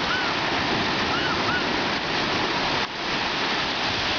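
Sea surf breaking and washing through the shallows, a loud steady rush of noise, with a few short high-pitched chirps near the start and about a second and a half in.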